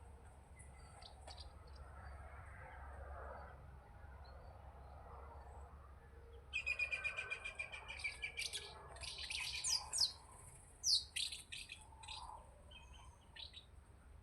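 Songbirds singing. About six seconds in comes a fast run of repeated high chirps, then several quick downward-sliding whistled notes over the next few seconds, over a faint low hum.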